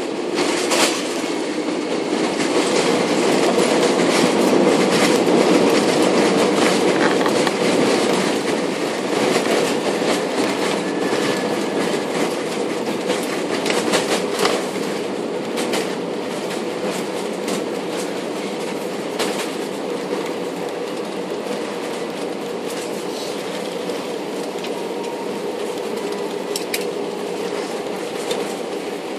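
Inside the cabin of an Airbus A320-200 on its landing roll: a steady roar and rumble from the runway and engines, with rattling in the cabin. The noise swells a couple of seconds in as the engines go to reverse thrust, then eases off as the aircraft slows.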